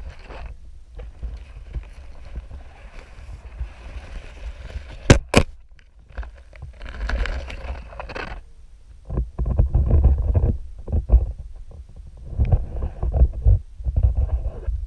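Handling noise of a GoPro in its underwater housing: irregular low rumbling and scraping bursts as the camera knocks and shifts among seaweed, with two sharp knocks a third of a second apart about five seconds in.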